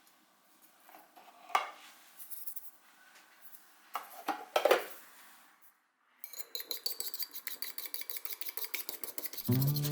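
Kitchen utensils clinking on dishes a few times, then about three seconds of fast, even strokes of a utensil beating in a bowl, roughly eight a second. Music comes in near the end.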